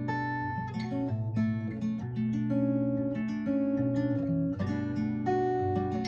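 Acoustic guitar playing an instrumental chord passage, notes picked and strummed and left to ring.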